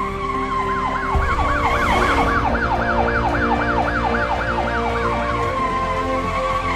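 Police car siren in fast yelp mode, its pitch sweeping up and down about four to five times a second, over a steady hum of a vehicle engine.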